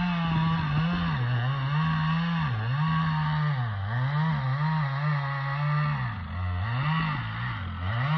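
Two-stroke chainsaw cutting into the trunk of a dead Douglas fir, running at high revs with its pitch dropping and recovering about once a second as it works through the wood.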